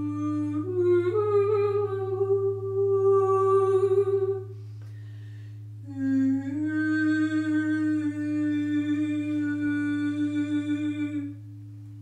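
A woman hums into a large hammered-metal singing bowl over a deep, steady drone. Her hum glides up to a higher note about a second in, breaks off for a breath around four seconds, then resumes and fades near the end.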